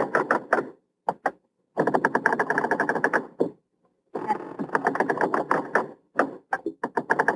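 Rapid mechanical clattering, many sharp clicks a second, coming in bursts of a second or two that stop and start several times.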